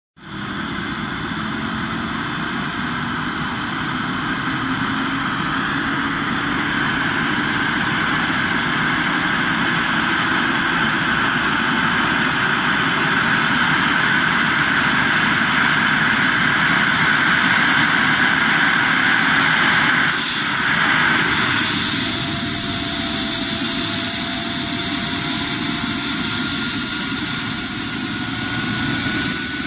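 Eurocopter EC135 air-ambulance helicopter on the ground with its turbines spooling up and its main rotor turning. A steady turbine-and-rotor noise grows slowly louder, with whines climbing in pitch as the engines run up for take-off.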